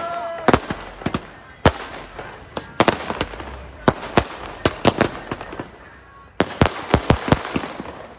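Sky-shot aerial fireworks going off in an irregular string of sharp cracks and bangs over a steady crackle. The bangs come thicker and louder from about six and a half seconds in.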